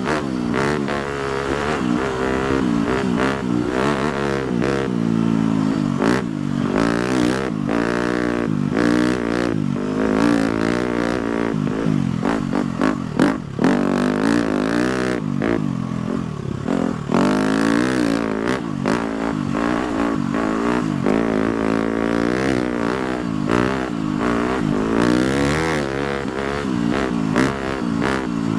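A 250cc four-stroke motocross bike engine, revving up and down over and over as the throttle is opened and closed on a dirt trail, with frequent knocks and clatter from the bike over rough ground.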